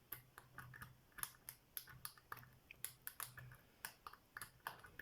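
Faint, irregular clicking and scraping of a double-peak rake being worked in and out of a small wafer lock's keyway under turning tension, the wafers clicking as the rake passes over them, several times a second.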